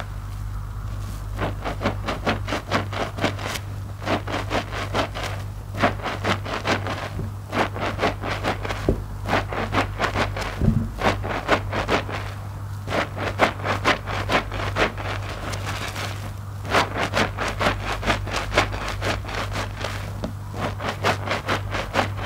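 Soap-soaked IKEA loofah squeezed by hand in a basin of lather: wet foam squelching and crackling. It comes in bursts of a second or several, with short pauses between squeezes, over a low steady hum.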